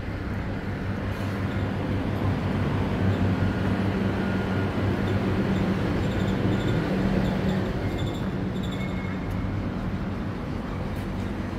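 A steady low engine hum over street traffic noise, growing louder a couple of seconds in and easing off again after about eight seconds.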